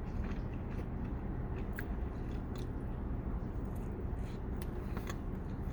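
A person chewing a burger close to the microphone, with scattered wet clicks and smacks from the mouth, over a steady low rumble.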